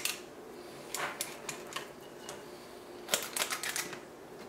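Stainless steel trigger cookie scoop clicking and scraping as it scoops dough and its spring-loaded release sweeps the dough out. A few light clicks come about a second in, and a quick run of clicks comes around three seconds in.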